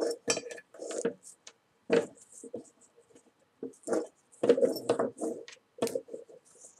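Hands pulling paracord through a beaded paracord collar on paper: irregular rustles, scrapes and light clicks of handling.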